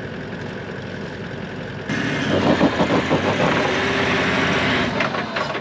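Toyota LandCruiser 79 engine running at idle, then about two seconds in much louder and rougher as it works to drive the vehicle and its caravan out of soft sand where they are bogged.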